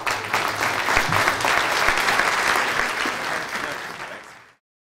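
Audience applauding, many hands clapping together; it thins out toward the end and cuts off abruptly.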